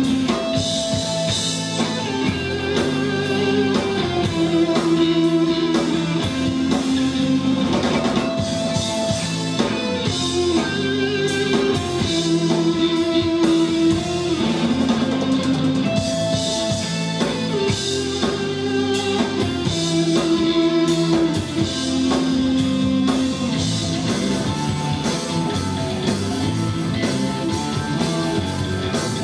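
Live instrumental rock played by a three-piece band: electric guitar, bass guitar and drum kit. A sustained melody phrase comes round about every eight seconds over a steady beat.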